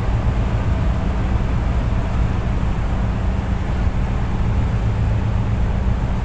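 Tugboat diesel engine running steadily: a deep, even drone, with a hiss of wind and water over it.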